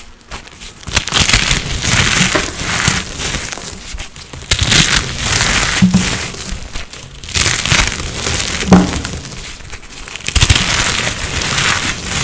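Dry, crumbly blocks of reformed coloured powder being crushed: dense crunching and crumbling in about four spells of a couple of seconds each, with short pauses between.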